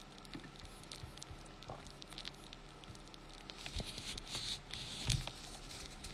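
Faint scattered clicks and rustling handling noise, with a soft thump about five seconds in.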